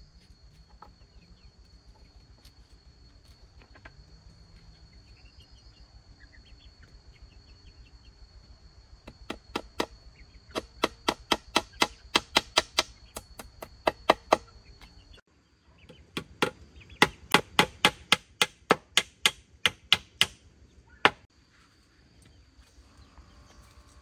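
Repeated sharp blows of a hand tool striking wood or bamboo, about two to three a second, in two runs of some five seconds each with a short break between. A steady high-pitched insect drone runs behind.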